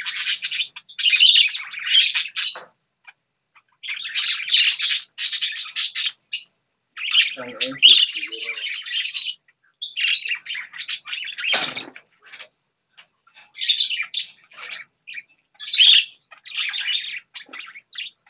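Budgerigars (parakeets) chirping and chattering in bursts of a second or two, with short pauses between.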